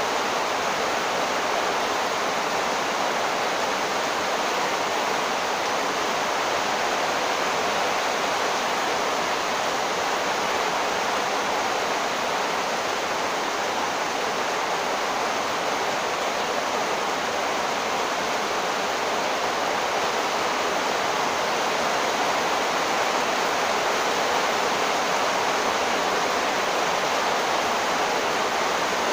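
Heavy monsoon downpour: a dense, steady hiss of rain that does not let up.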